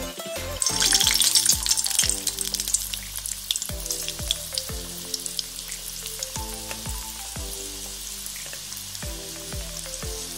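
Bhakarwadi rolls deep-frying in hot oil, sizzling and crackling. The crackle is loudest about a second in, then settles into a steady sizzle.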